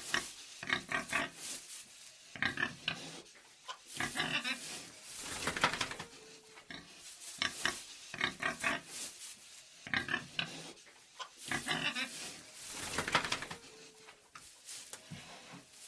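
Pig grunting and oinking in a sty, in short rapid bouts every second or two.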